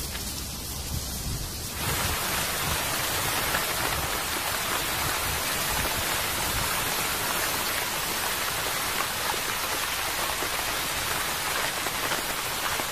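Steady rain falling, coming in suddenly about two seconds in over quieter open-air background.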